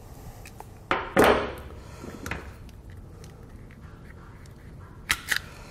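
Hand wire stripper (Capri) cutting and stripping a wire: one sharp snip about a second in, then a few lighter clicks of the tool.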